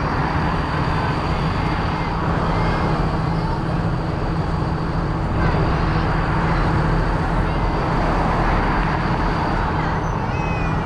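Diesel tractor engines running steadily at low speed, a continuous drone with road noise. Faint wavering high sounds come and go over it.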